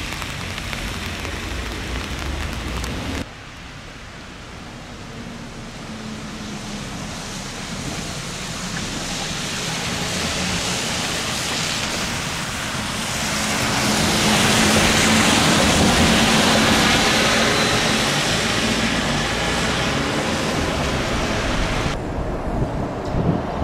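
Trolleybus approaching and passing on a wet road. Tyre hiss and a low steady hum build from a few seconds in, are loudest a little past halfway, then ease off. The street noise changes abruptly shortly after the start and again near the end.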